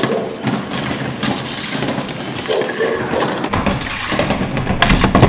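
Hollow plastic toy blocks clattering, knocking and scraping across a floor board as puppies push and chew them, with a heavier rumbling scrape in the last couple of seconds.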